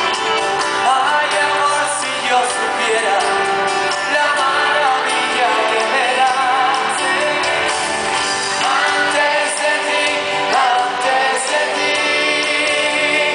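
Live band performing a song in a large hall, heard from the audience: strummed acoustic and electric guitars under sung vocal lines, at a steady loud level.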